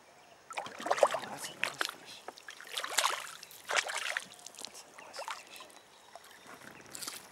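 Irregular splashing and sloshing of water at the side of a fishing kayak as a hooked Australian bass is played and brought in for netting, with the loudest splashes about a second in and about three seconds in, dying down after about five seconds.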